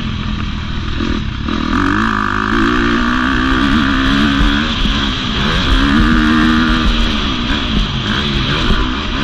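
KTM SXF 250's single-cylinder four-stroke motocross engine under riding load, revving up and down with the throttle as the bike is ridden over a dirt track, heard close up from the bike. The pitch rises and falls repeatedly, with a short drop about a second in.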